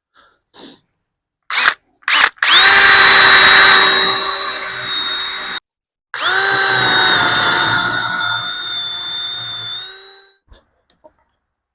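Power drill boring into wood: a few quick trigger blips, then two long runs at steady speed with a short pause between, the second slowing and trailing off near the end. The holes are being re-drilled to move the gate hinges about an inch higher.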